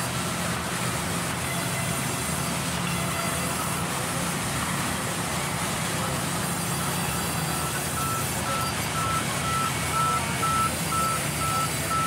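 Forklift engine running steadily while moving a load of logs. About two-thirds of the way through, its warning alarm starts: a rapid, evenly repeated beep on one high tone.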